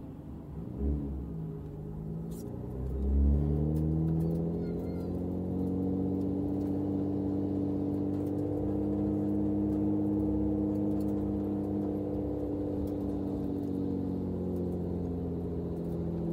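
Nissan Skyline R33 GT-R's RB26DETT twin-turbo straight-six, heard inside the cabin: a quick blip of revs about a second in, then the engine pulls hard about three seconds in, its note climbing slowly under load and easing gently back down toward the end.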